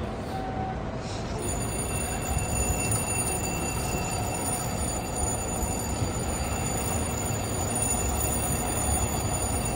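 Fire engine's diesel engine running as the rig pulls slowly out of the firehouse, a steady low rumble over city street noise, with a few faint steady high tones.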